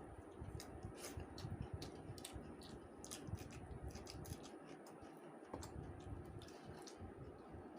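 Close-up eating of rice with fish curry: soft, wet mouth clicks and smacks of chewing, irregular, several a second.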